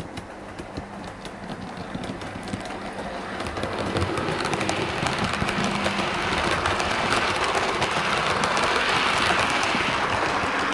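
A model Class 24 diesel locomotive and its rake of coaches running along layout track: a rattling rumble of wheels and motor with many small clicks, growing louder over the first few seconds as the train approaches, then holding steady as it passes close by.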